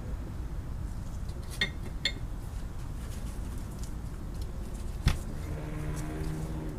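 Metal parts of a machinist vise clinking as they are handled: two light ringing clinks, then a sharper knock about five seconds in. A low steady hum sets in after the knock.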